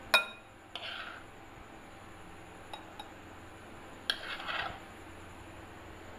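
Metal spoon clinking against a glass bowl as custard is spooned over chopped mango: a sharp ringing clink right at the start, then a short scrape, two light taps, and a second clink about four seconds in followed by about half a second of scraping.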